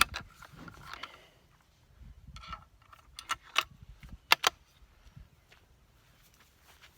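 Metallic clicks and clinks of a Winchester XPR bolt-action rifle being handled and loaded, with a few sharp clicks about three and a half to four and a half seconds in.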